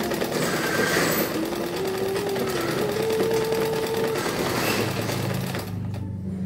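Janome 680 sewing machine stitching a buttonhole while driven by hand at the handwheel instead of its motor: a quick, continuous ticking clatter of needle and feed that thins out near the end. A wavering tone runs over it for the first four seconds.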